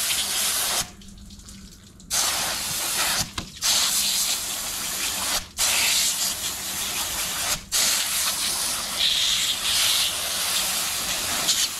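Garden hose spray nozzle hissing as it jets water onto a flounder and cutting board, rinsing off the fish's slime coat. The spray stops for about a second near the start and breaks off briefly three more times.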